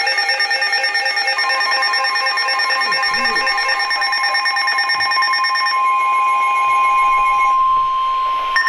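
Weather radio alert tones announcing a new warning: a steady high alarm tone comes on about a second and a half in and holds, over other steady electronic tones pulsing rapidly.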